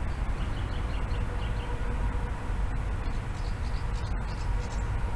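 Uneven low outdoor rumble with a faint steady hum, and two short runs of quick, faint high chirps, one about a second in and one past the middle.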